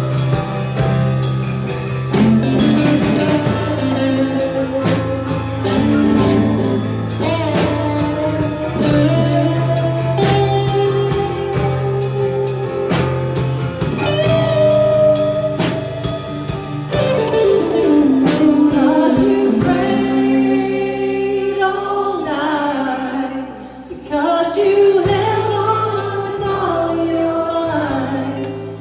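Gospel worship song played by a church band: singing over guitar and a steady drum beat. The drums drop out about twenty seconds in, leaving the singing and instruments, with a brief dip before the music swells again.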